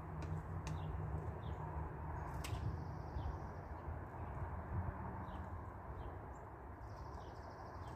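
Outdoor ambience: small birds chirping now and then, with two short buzzy trills, over a steady low rumble and hiss.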